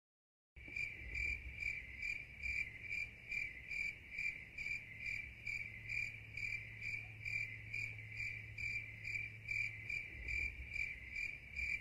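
Crickets chirping in an even rhythm, about two to three chirps a second, over a faint low hum. It starts suddenly out of dead silence about half a second in and cuts off near the end. It is the stock crickets effect for an awkward silence after a story falls flat.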